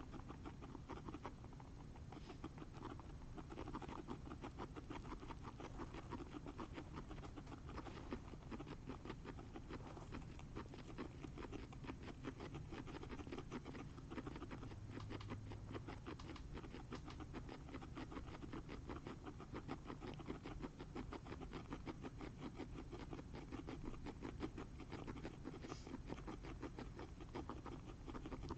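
Guinea pigs chewing: a faint, fast, steady clicking crunch of small teeth that keeps going without a break.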